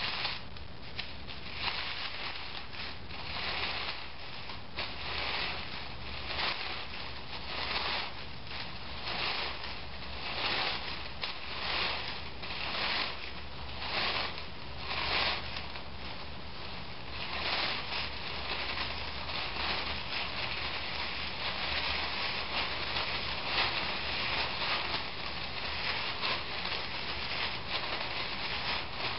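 Paper mouth-coil streamer rustling as it is pulled hand over hand out of a fist, a swish with each pull about three every two seconds. In the last ten seconds it turns to a steadier crinkling as the loose paper is handled.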